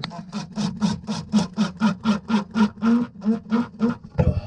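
Cordless drill-driver driving a screw, running with an even pulsing of about five beats a second.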